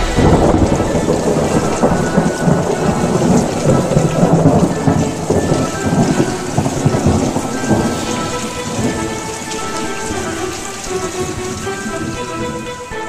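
Heavy rain with rumbling thunder, a storm sound effect laid over the end title. It fades gradually through the second half, as steady sustained music notes come in underneath.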